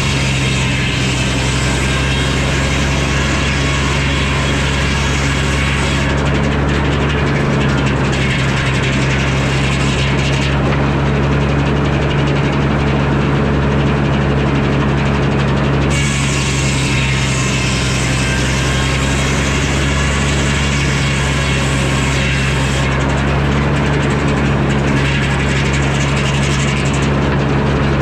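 A Frick sawmill running: the engine driving it holds a steady drone, and a high hiss from the saw swells and eases every several seconds as it cuts.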